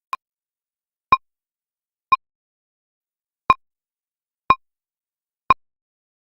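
Countdown timer tick sound effect: six short, crisp ticks about a second apart, the first one quieter, with a slightly longer gap after the third.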